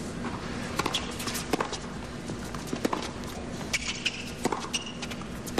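Tennis ball being struck back and forth with rackets in a rally, sharp pops about once a second, with the ball bouncing on the hard court in between.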